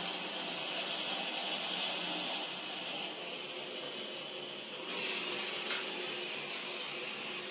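Karcher DE 4002 steam cleaner jetting steam through its brush nozzle, a steady hiss that briefly steps up in level about five seconds in.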